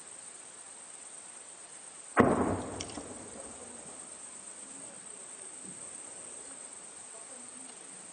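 A single distant artillery explosion about two seconds in: a sudden heavy boom that rumbles and fades away over about a second.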